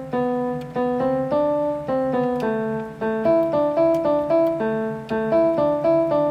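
Background piano music: a simple melody of evenly spaced notes, about three a second, with a steady low tone underneath.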